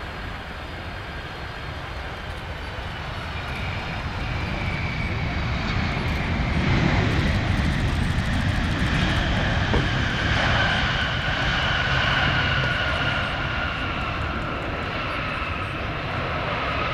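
Boeing 767 freighter's twin jet engines running as it lands and rolls out down the runway: a broad rumble with a high whine that slowly falls in pitch. It grows louder a few seconds in and is loudest through the middle.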